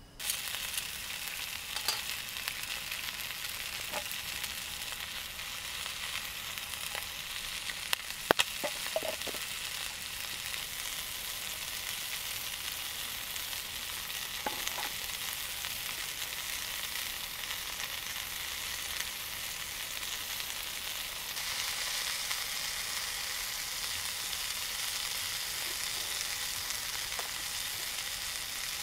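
Food sizzling in a frying pan, a steady hiss, with a few light clinks about a third of the way in. The sizzle grows slightly louder about three-quarters of the way through.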